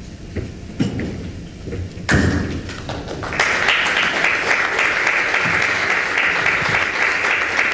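A few dull thumps and knocks in the first two seconds, then audience applause that starts about three seconds in and carries on steadily.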